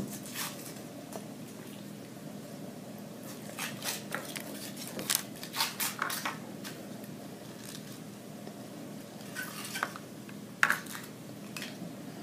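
Foil wrapper being peeled off a Kinder Surprise chocolate egg by small hands: scattered crinkles and rustles, coming in two bunches, the sharpest crackle near the end.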